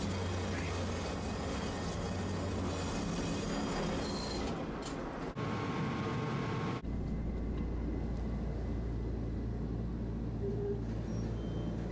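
Tosaden streetcar running along the rails, with wheel and motor noise. About seven seconds in, the sound cuts abruptly to a steady low hum as the tram stands still.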